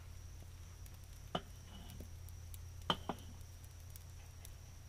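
Handling noise from a pile of raw bacon-wrapped chicken wings being gathered and carried in the hands: a few soft, wet taps and clicks, with two sharper ones close together about three seconds in, over a steady low hum.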